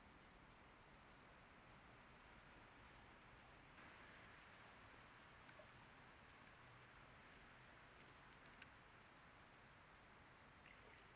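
Near silence: a faint, steady high-pitched insect drone, with a couple of tiny ticks.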